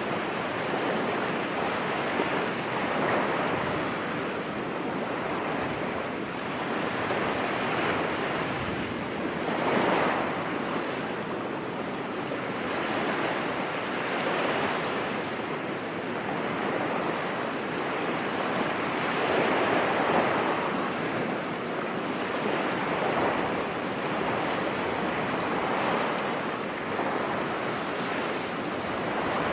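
Sea waves breaking on a beach: a continuous wash of surf that swells with each incoming wave every few seconds, loudest about ten and twenty seconds in.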